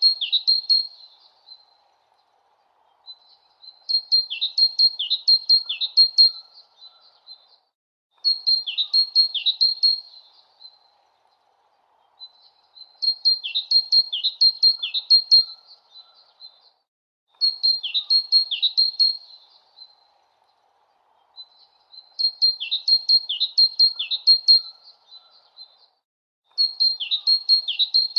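A small songbird chirping in repeated bursts of quick, high tweets with a few downward-sweeping notes, each burst two to three seconds long with short pauses between, over a faint steady background hiss.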